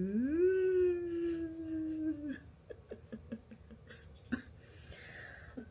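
A woman's long, wordless 'mmm' of delight, rising in pitch and then held for about two seconds, followed by soft mouth clicks as she chews a soft cream bun.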